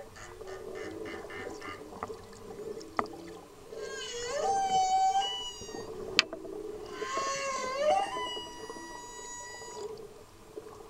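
Humpback whale song heard underwater: a quick series of pulsed grunts over the first couple of seconds, then rising, whooping cries about four and seven seconds in, and a long held tone near the end. A sharp click stands out about six seconds in.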